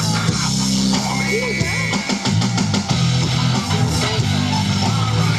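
Loud rock music with electric guitar, played over a loudspeaker.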